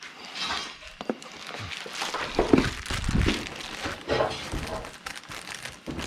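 Packing material crinkling and rustling as a box of parts is unpacked, with a few light knocks.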